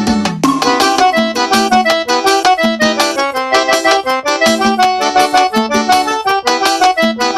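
Instrumental forró backing track led by an accordion playing quick, busy runs of notes over a steady pulse. The low drum hits drop out as it begins.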